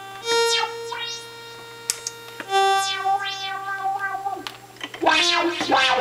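Doepfer Dark Energy single-oscillator analog synthesizer playing two held notes while its resonant filter is swept, the cutoff falling in repeated glides through the harmonics; the resonance is set very high. Near the end comes a quick run of short notes with fast filter sweeps.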